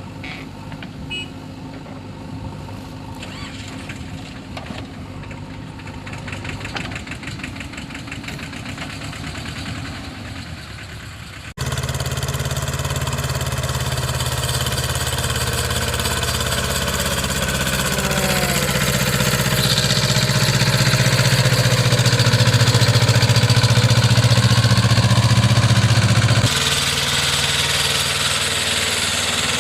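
Backhoe loader's diesel engine running. The sound cuts abruptly about twelve seconds in to a much louder, deeper engine note, which builds under load and eases back a step near the end.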